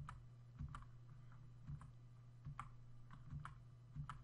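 Soft, irregular clicks of a computer mouse and keyboard, about seven over four seconds, over a faint steady low hum.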